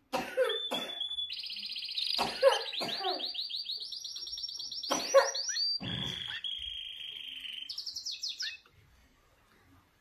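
Canary singing: long, fast trills of rapidly repeated high notes that shift to a new trill every second or so, with a few short, harsher lower notes mixed in. The song stops about a second and a half before the end.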